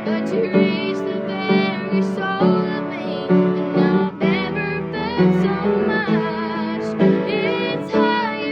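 A song: young female voices singing a slow, tender melody over instrumental accompaniment.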